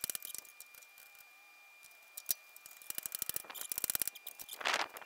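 Hand ratchet clicking in quick runs of sharp metallic clicks while the camshaft bearing puller is worked in the engine block. Near the end comes a brief, louder rush of scraping noise.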